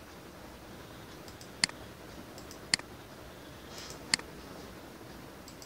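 Three sharp computer mouse clicks spread over a few seconds, with a few fainter ticks between them, over a steady low room hiss.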